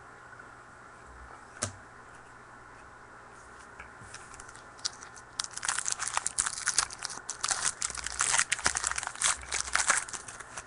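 A foil trading-card pack wrapper being torn open and crinkled by hand, a dense, irregular crackle that starts about halfway through. A single click comes earlier.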